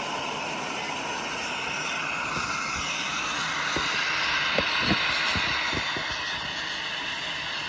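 Model passenger train running past on its track: a steady whirring rush that swells as the cars pass closest. A short string of sharp clicks from the wheels on the rails comes about halfway through.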